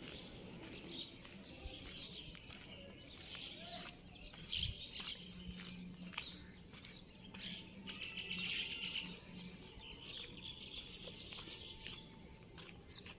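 Birds chirping faintly outdoors, with scattered soft clicks and a faint low hum for a few seconds in the middle.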